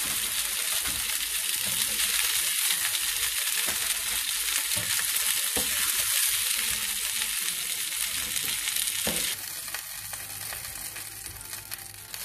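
Chicken seekh kebabs sizzling in hot shallow oil in a frying pan while they are lifted out with a spatula. The steady sizzle drops to a quieter hiss about nine seconds in.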